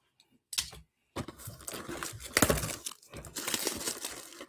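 Packaging of a sealed trading-card mega box being torn open and crinkled: a short rip about half a second in, then continuous crinkling and tearing.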